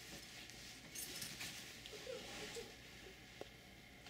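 Quiet room tone with a few faint rustles and a short soft click about three and a half seconds in.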